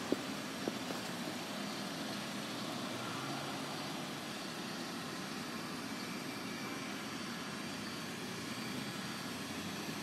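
Steady outdoor vehicle and traffic hum, with a couple of faint clicks in the first second.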